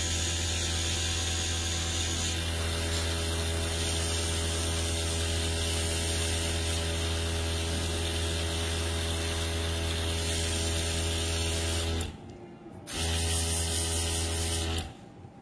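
Small airbrush compressor running with a steady low hum, with the airbrush hissing as it sprays paint onto a nail tip through a lace stencil. It cuts out briefly about twelve seconds in, starts again, and stops just before the end.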